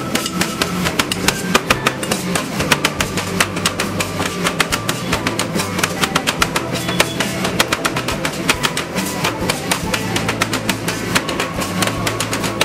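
Background music with a quick, steady beat over held bass notes.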